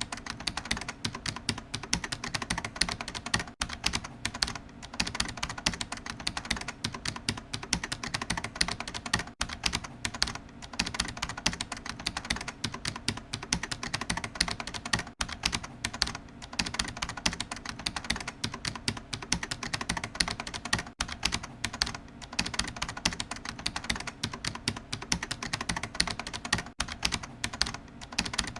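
Fast, continuous typing on a computer keyboard: a dense stream of key clicks with no real pauses.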